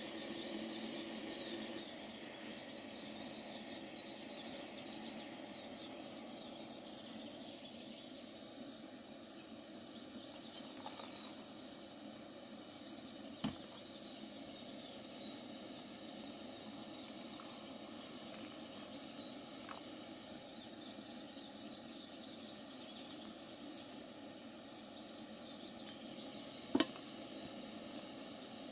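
Optimus 199 camp stove burner hissing steadily under a kettle. A sharp knock about halfway through and a louder one near the end.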